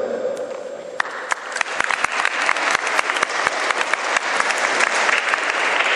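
Audience applauding: a few scattered claps about a second in that quickly swell into full, steady applause.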